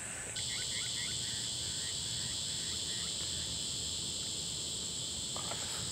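Insects droning steadily in the bush, one high-pitched chorus joined suddenly just after the start by a second, lower-pitched one, with faint repeated chirps underneath.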